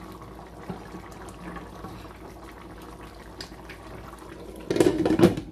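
A covered pot simmering on the hob with a steady low bubbling. Near the end, a glass lid clatters and rings as it is set down on the baking dish.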